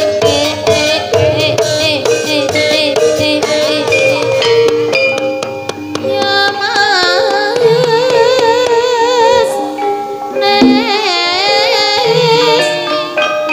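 Live ebeg dance accompaniment: Javanese drums and pitched percussion with a wavering, sung melody over them.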